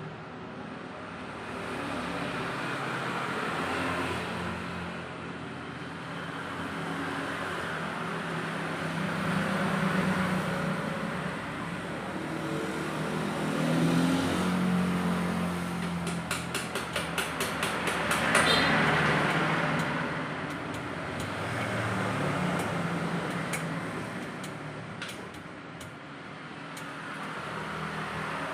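Motor vehicle engines running, swelling and fading every few seconds, with a quick run of ticks about sixteen seconds in.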